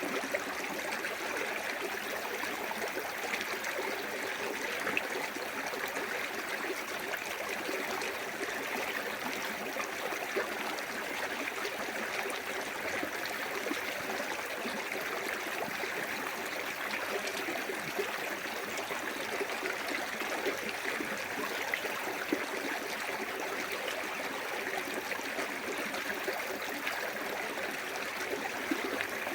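A small waterfall on a clear woodland stream, water running and splashing steadily with a constant rushing and small splashes.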